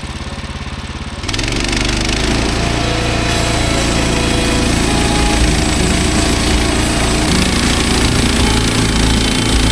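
Gas engine of a Woodland Mills HM130 Max bandsaw sawmill idling, then throttled up about a second in and running steadily at full speed with the band blade turning.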